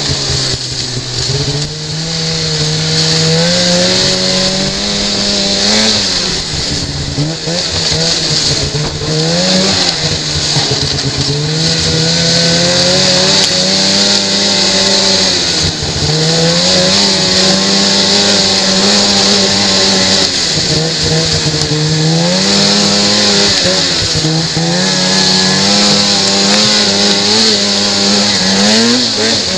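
Snowmobile engine running down a trail, its pitch climbing as the throttle opens and dropping as it eases off, again and again every few seconds, over a steady high hiss.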